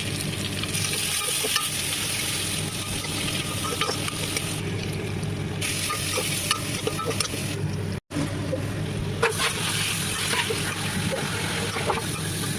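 Chicken curry frying in a pan as it is stirred: a steady sizzle with small scraping clicks from the spoon. The sound cuts out for a moment about eight seconds in.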